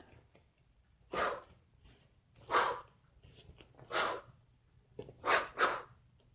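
Short, sharp exhalations from a martial artist performing a form, one breath forced out with each technique. There are five, roughly every second and a half, and the last two come close together.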